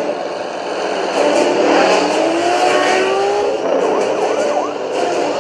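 Big-rig truck engine sound effect revving, its pitch rising over a couple of seconds. Near the end a repeated rising-and-falling whine sets in.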